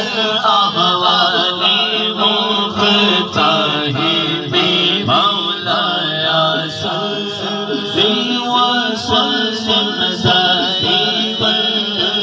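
A naat, a devotional poem in praise of the Prophet Muhammad, sung by a man in long, wavering melodic lines.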